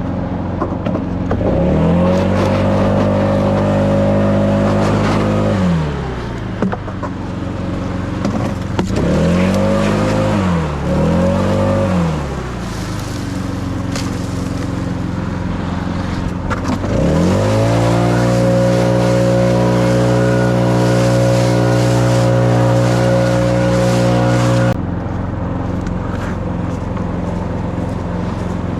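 An engine revved up and held for a few seconds, then let back down, blipped twice quickly, then revved up again and held for several seconds before dropping off suddenly near the end.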